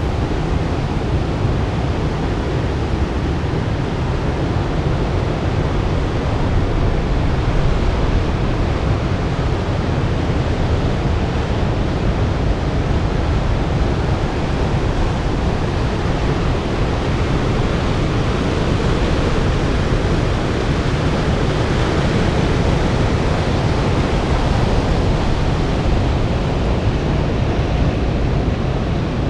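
Ocean surf: large waves breaking, a steady, unbroken rush of water.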